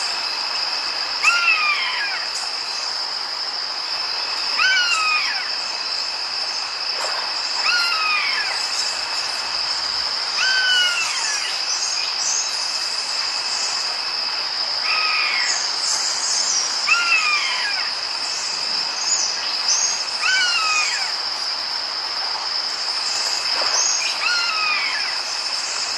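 Ambient rain soundtrack: a steady rain hiss under a continuous high insect drone, with a short, downward-sliding call repeated every two to four seconds.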